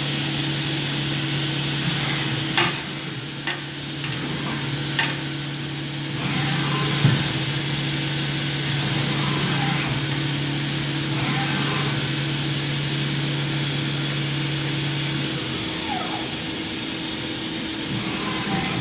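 Doosan DNM 500 II vertical machining centre running, a steady hum with a low tone that cuts off about 15 seconds in, while a higher tone carries on. A few sharp knocks sound in the first five seconds.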